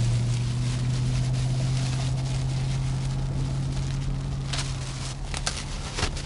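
A steady low motor hum that fades away about five seconds in, over plastic wrapping crinkling as folded pop-up hampers are pulled out of their packaging. The crinkling is sharpest near the end.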